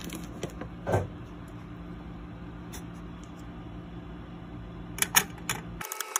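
Scattered light metallic clicks and taps as a CPU cooler's steel retention plate and its small mounting screws are handled and a screwdriver is set on a screw, with a quick cluster of sharper clicks about five seconds in. A steady low hum sits underneath and cuts off abruptly near the end.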